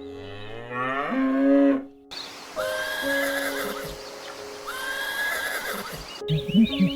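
Farm animal calls: a loud rising call about a second in, then two separate higher cries a couple of seconds apart, over background music with steady held notes.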